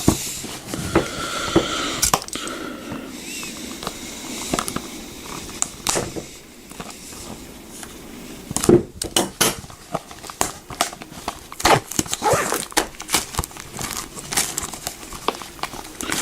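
Plastic Blu-ray case and its wrapping being handled and opened: crinkling and crackling, then many sharp clicks and snaps through the second half.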